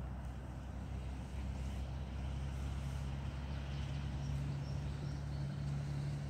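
Steady low hum of a motor vehicle's engine running, a little louder toward the end, with a few faint high bird chirps.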